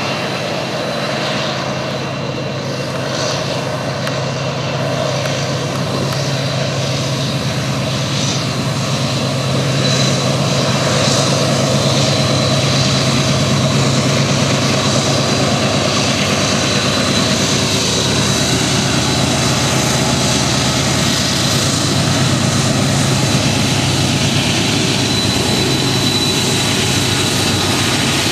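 BNSF diesel-electric freight locomotives pulling an intermodal stack train upgrade, a steady heavy engine drone with a thin high whine above it, growing louder about ten seconds in as the units draw near.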